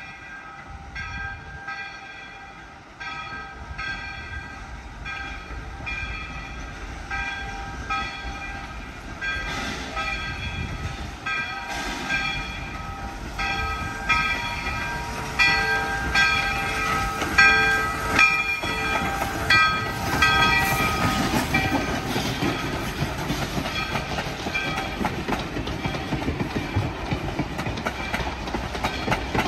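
Steam locomotive's bell ringing about once a second, getting louder as the engine approaches hauling passenger coaches. After it passes, the ringing gives way to the rumble and clatter of the coaches' wheels rolling by on the rails.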